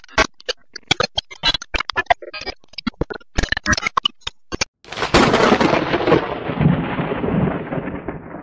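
Title-animation sound effects: a run of rapid, irregular typing clicks, then about five seconds in a sudden heavy boom that rumbles and fades over about three seconds.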